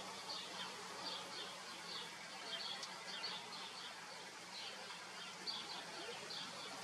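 Faint, high chirping of small birds, short irregular chirps a few per second, over a steady outdoor hiss.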